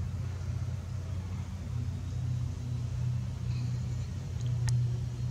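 A steady low mechanical hum, with one sharp click about four and a half seconds in.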